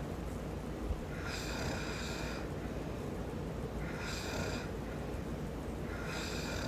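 A man snoring in his sleep, a snore about every two seconds, over a steady low background rumble.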